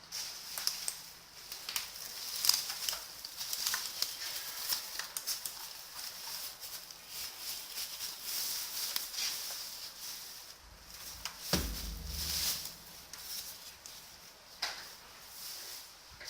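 Packaging being handled while a keyboard is unboxed: rustling with scattered small clicks and knocks, and a dull thump about eleven and a half seconds in.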